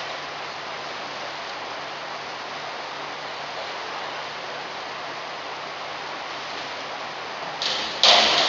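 Steady hiss of an indoor pool hall. Near the end comes a diver's entry splash off the springboard, with applause starting right after.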